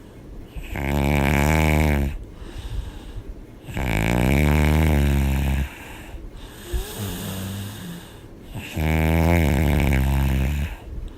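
A woman snoring loudly: three long, rattling snores about four seconds apart, each lasting a second or two, with quieter breathing between them.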